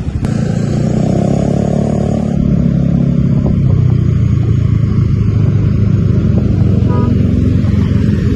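Motor vehicle engine running close by: a loud, steady low rumble that grows a little louder about two and a half seconds in.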